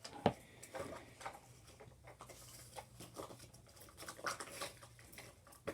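Faint scattered clicks, taps and rustles of handling as white school glue is poured from its bottle into a bowl, with a sharper click about a third of a second in.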